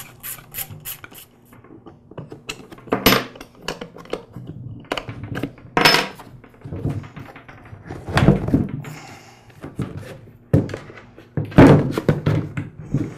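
A ratchet wrench clicking at about four clicks a second as it backs out a bolt, stopping about a second in. Then a series of irregular knocks and thunks as the air compressor's hard plastic pump cover is worked loose and pulled off the pump and motor.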